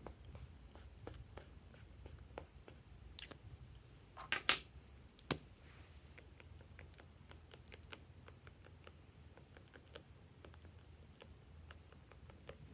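Quiet handling sounds of a small plastic tube worked against soft clay on slime: scattered light clicks and ticks, with a short cluster of louder clicks about four and a half seconds in and another just after five seconds.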